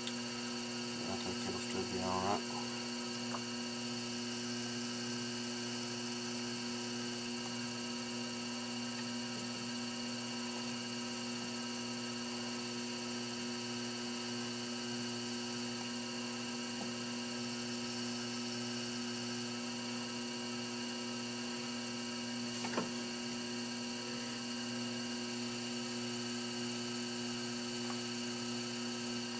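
Electric potter's wheel motor humming steadily as the wheel spins, with one short click late on.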